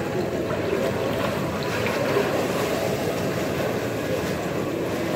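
Pool water splashing and lapping close to the microphone as a swimmer swims away with arm strokes, a steady wash of water noise.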